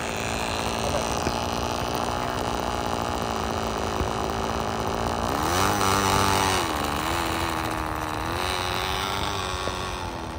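O.S. 15 LA two-stroke glow engine on a balsa RC plane, running steadily at low throttle, then opened up about five seconds in for the takeoff roll. Its pitch jumps up, dips briefly and then holds higher with a slight waver as the plane runs away down the strip.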